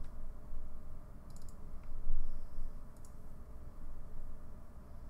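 Computer mouse buttons clicking: a cluster of quick clicks about a second and a half in and a double click about three seconds in, which opens the IntelliJ IDEA application.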